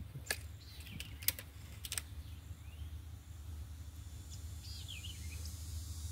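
A few faint, sharp clicks in the first two seconds, then faint bird chirps about five seconds in, over a steady low outdoor background noise.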